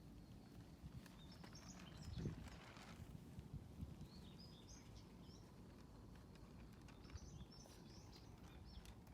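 Faint outdoor ambience: a low steady rumble with distant birds chirping in short bursts a few times, and a soft low thump about two seconds in.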